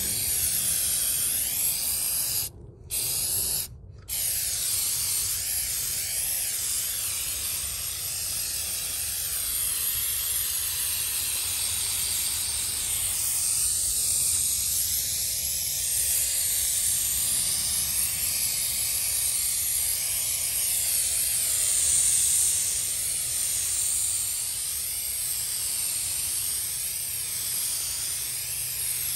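Aerosol can of spray-on rubber coating spraying in long steady hisses. It breaks off briefly twice about three and four seconds in.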